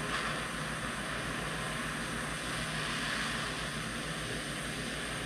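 Steady rushing hiss of a heating tool blowing on the old connector's solder joint to free the wire, over a faint electrical hum.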